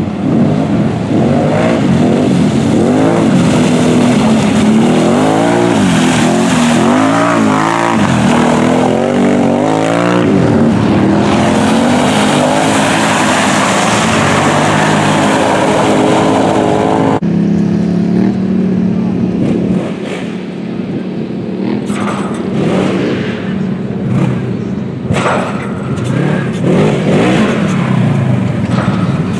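ATV and side-by-side engines revving hard through mud, the pitch rising and falling again and again as the throttle is worked. About 17 seconds in the sound changes abruptly to a side-by-side revving in shorter bursts over rough dirt.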